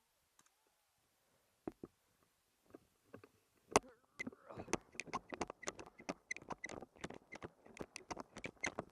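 A sharp knock about four seconds in, then quick crunching footsteps through dry leaves and brush, about three or four steps a second. Before that, only a few faint clicks.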